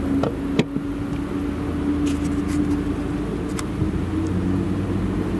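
Claas Jaguar 970 forage harvester chopping maize and blowing it into a trailer, with Case IH tractors running alongside: a steady, loud machinery drone with a constant hum. There is a short click about half a second in.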